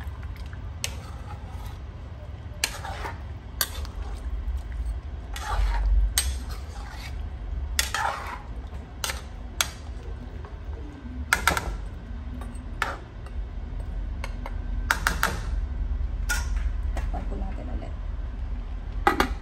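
Metal spoon clinking and scraping against a metal pan while a thick beef stew is stirred: a string of sharp clinks, spaced unevenly about every half second to a second, over a low steady hum.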